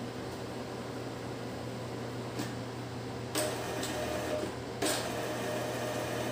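Epson L3110 inkjet printer starting its power cleaning cycle: a few clicks from the mechanism, then about three and a half seconds in a motor starts up with a steady whine, over a constant low hum.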